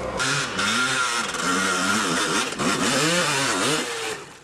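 Dirt bike engine revving up and down in repeated throttle blips, dropping away near the end.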